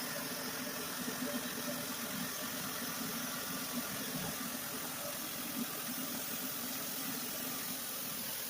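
An engine running steadily at idle: a constant low hum under an even hiss.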